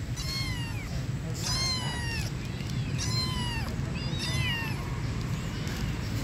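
Young kittens meowing: four high, thin calls, each falling in pitch, about one every second and a half.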